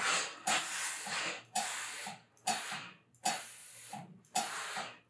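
Steam iron giving repeated bursts of steam as it presses a wool seam, about one burst a second, each starting with a short click and hissing away within a second.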